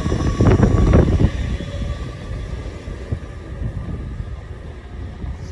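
Great Western Railway Class 800 train pulling out of the station: a low rumble with a faint steady whine, and a few knocks in the first second or so, fading as it moves away.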